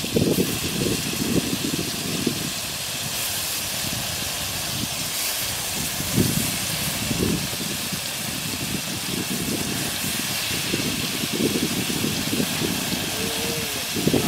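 Skewered prawns sizzling as they shallow-fry in hot oil in a pan: a steady frying hiss, with an uneven low rumble underneath.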